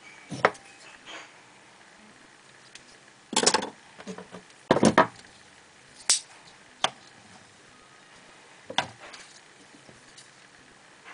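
Rick Hinderer XM-24 folding knife being flipped open and snapped shut: sharp metallic clicks and snaps as the blade swings out and locks or drops closed, about six times, some in quick doubles.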